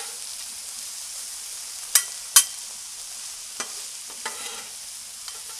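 Vegetables and steak strips sizzling in oil on a Blackstone flat-top griddle, with a steady hiss, while two metal spatulas toss them and clack and scrape on the griddle top. Two sharp spatula clacks about two seconds in are the loudest sounds, with a few lighter ones after.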